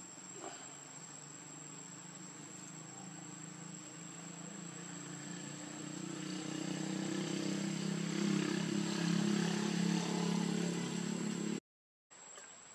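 Steady high-pitched insect drone, like cicadas or crickets, over a low hum that swells through the middle and peaks near the end before cutting off abruptly.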